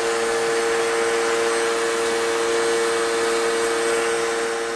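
Steady drone of running workshop machinery: a constant hum over an even rushing noise, easing off near the end.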